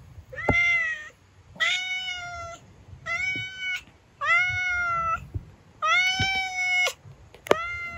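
A hungry street cat meowing over and over, six calls each under a second long, begging to be fed.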